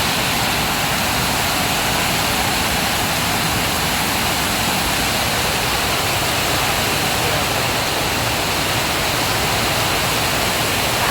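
Storm of heavy rain and strong wind: a dense, steady hiss with no let-up.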